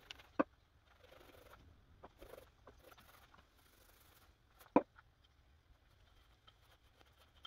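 Paint roller rolling wet paint over a wooden subwoofer box, a soft, sticky crackling with each stroke. Two sharp knocks stand out, one less than half a second in and a louder one near five seconds.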